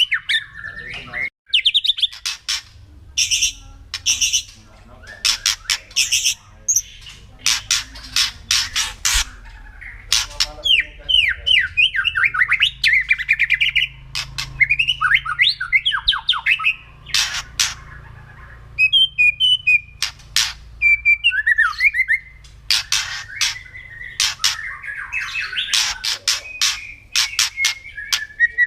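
White-rumped shama (murai batu) calling: repeated harsh, crackling rattles (the 'kretekan' call) alternating with quick whistled phrases that slide up and down. This is the agitated call used to provoke rival shamas.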